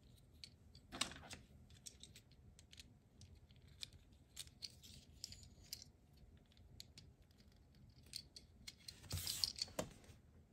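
Small plastic clicks and snaps of a transforming ambulance robot toy's hinged parts being folded and turned by hand, with a louder clatter of handling a little after 9 seconds.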